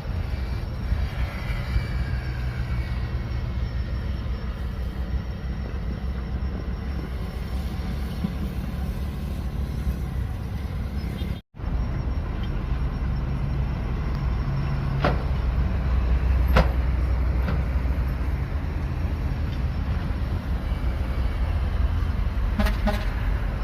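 Bulldozer diesel engine running steadily with a deep rumble, cut off for a split second about halfway through. A few seconds later come two sharp metallic clanks.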